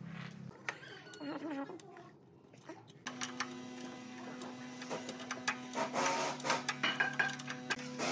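A small electric motor starts humming steadily about three seconds in, with many scattered clicks and taps over it. Before that, a lower hum cuts off and there are a few faint clicks.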